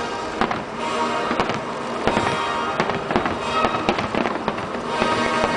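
Aerial firework shells bursting in repeated bangs, several a second at times, over music playing.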